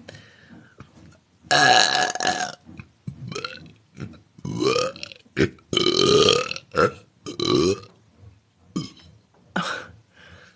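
A woman burping repeatedly: one long, loud burp about a second and a half in, then a string of shorter burps.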